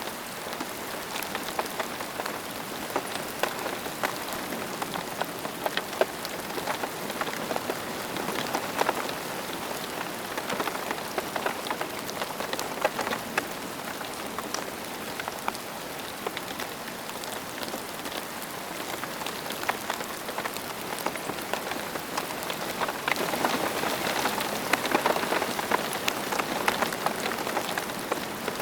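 Steady rain falling on a surface, with many individual drops pattering; it grows louder for a few seconds near the end.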